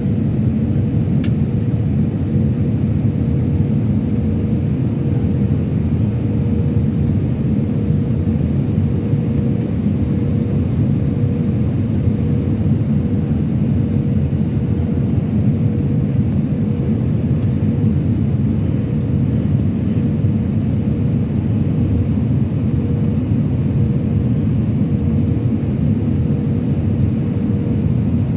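Airbus A319-100 cabin noise heard from a window seat over the wing: a steady rumbling drone of engines and airflow, with a thin steady hum, as the jet flies its approach with flaps extended.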